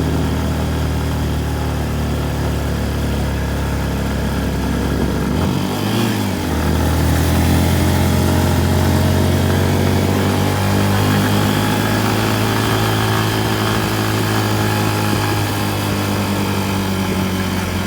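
Motorcycle engine running steadily, its note shifting about six seconds in, as with a change of speed or gear, then holding steady again.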